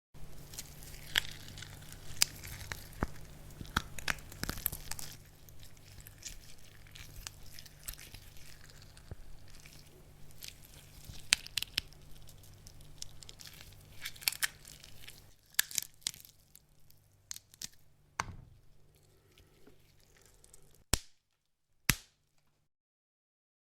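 Bone-cracking sound effect: a long, dense run of crunching, crackling cracks and snaps that thins out past the middle, ending with two separate sharp cracks. A faint low hum sits underneath.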